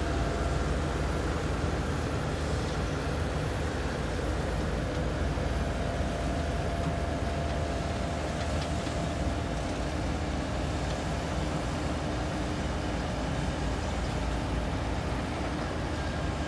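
Heavy diesel machinery running steadily: a Kobelco crawler excavator and a sand-dredge pump engine together make one continuous deep drone, even in level throughout, with faint steady hums above it.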